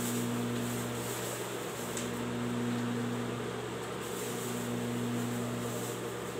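Steady electric motor hum with a faint hiss above it, holding unchanged with nothing being sewn.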